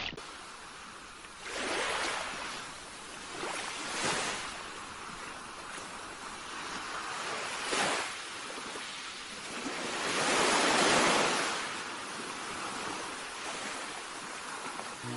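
Sea waves washing in on a shore: a steady hiss of surf that swells about four times, each surge lasting a second or two.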